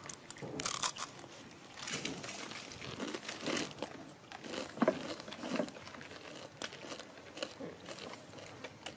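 Irregular crackling and crunching of a dry, crumbly snack as young macaques pick pieces from the plates and chew them.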